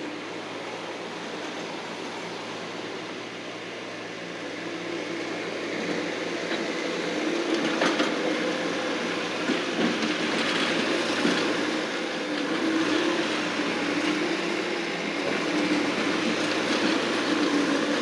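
Engine of a landscaping machine running steadily with a wavering note, growing louder about five seconds in, with a few short clatters.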